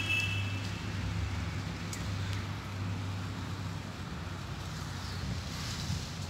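Steady low outdoor background hum with no clear single source. A high whistling tone fades out within the first second, and two faint clicks come about two seconds in.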